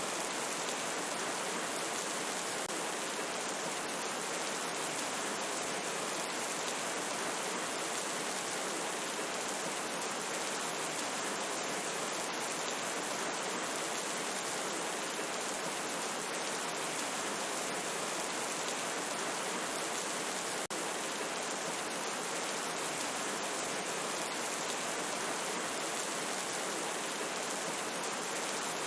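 Steady, even rain falling, a constant hiss with no thunder or other events.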